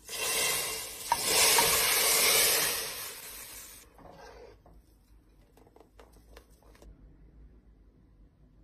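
Hot olive oil with fried garlic poured into a pot of blended lentil soup, sizzling loudly for about four seconds as it hits the soup. Then quieter scattered clinks of a metal spoon stirring in the steel pot.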